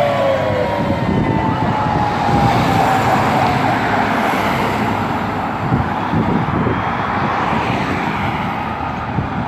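A fire rescue truck's air horn fading as the truck passes, its tones falling in pitch, followed by the truck's engine and tyre noise as it drives away.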